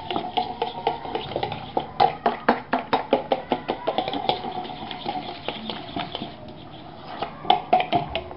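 A utensil stirring a wet egg-and-sauce mixture in a mixing vessel, clinking against its sides in quick repeated strokes, several a second, loudest in the middle and again near the end.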